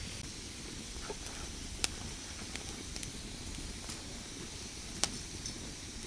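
Wood fire crackling under a wire grill: a steady hiss broken by several sharp pops, the loudest about two seconds in and about five seconds in.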